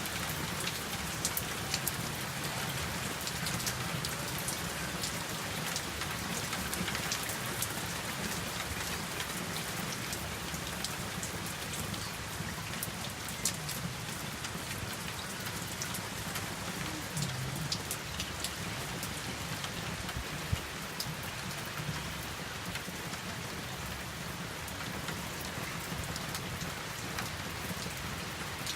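Steady rain falling, with many separate drops ticking sharply over the constant hiss.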